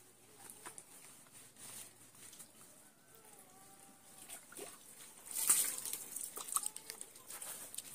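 Water splashing as it is scooped and poured by hand, with a louder burst of splashing a little past the middle and a few sharp splashes after it.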